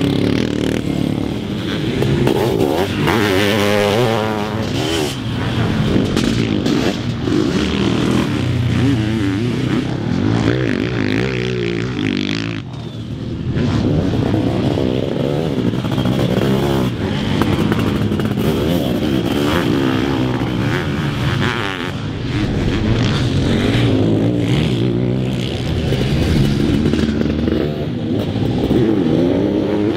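Sidecarcross racing outfits' motorcycle engines revving on a dirt track, pitch rising and falling as they accelerate, shift and pass, with a brief drop in level about twelve seconds in.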